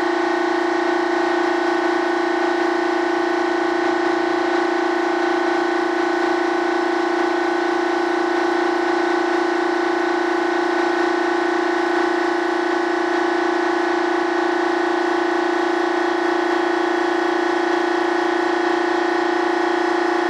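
Steady droning hum at one fixed pitch with many overtones, unchanging throughout.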